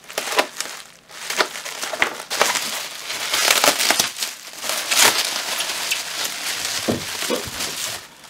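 Plastic bubble wrap crinkling and rustling as it is slit open with a utility knife and pulled apart by hand, with many small sharp crackles.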